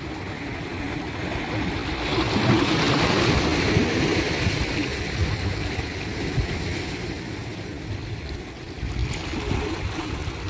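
Calm sea waves washing onto the shore, the surge swelling about two seconds in and slowly easing off.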